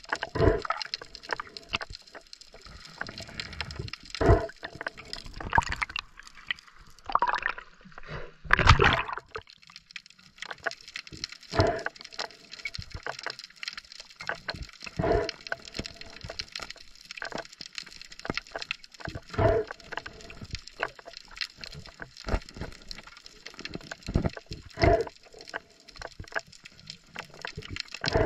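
Underwater sound picked up by a submerged camera: muffled knocks and swishes of water every few seconds, the loudest about nine seconds in, over a steady high hiss.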